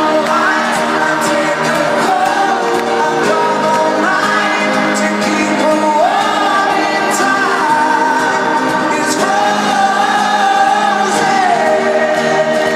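Live pop song over a stadium PA, recorded from the audience: a male lead vocalist sings long held notes that slide between pitches, over steady band backing.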